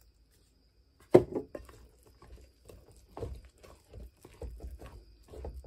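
Plastic bowl scraper working water into flour for cracker dough in a glass bowl, scraping and tapping irregularly against the glass, with a sharp knock about a second in.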